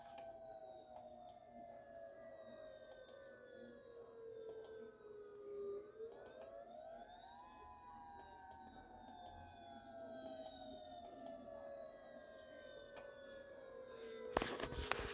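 Outdoor tornado warning siren wailing faintly. Its pitch falls slowly, climbs quickly about six seconds in, then slowly falls again. A cluster of loud clicks comes near the end.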